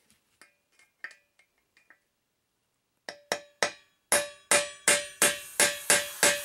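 Claw hammer striking a flat steel tool held against the rim of a Heineken mini keg to cut open its top. Faint light taps at first, then from about three seconds in loud, evenly spaced strikes about three a second, each followed by a metallic ring from the keg.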